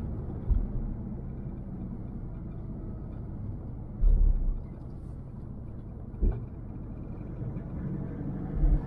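Road and tyre noise inside a moving car, a steady low rumble. There is a heavy low thump about four seconds in and a short knock just after six seconds.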